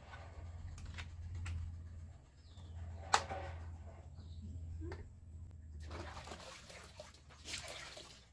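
Plastic parts of a portable carpet cleaner being handled and fitted while it is rinsed: a few sharp clicks and knocks, the loudest about three seconds in, with softer handling noise near the end over a low steady hum.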